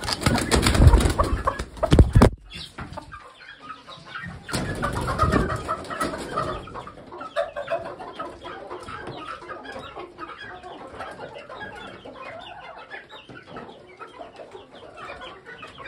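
A gamefowl stag flapping its wings hard for about two seconds as it is handled off the roost, with a second burst of flapping and feather rustling about four seconds later. After that, chickens clucking softly.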